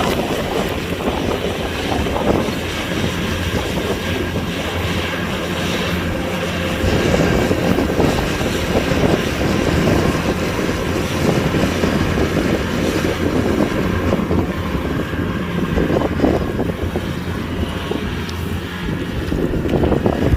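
Kubota DC-105X combine harvester running steadily, its engine drone mixed with the noise of the harvesting machinery.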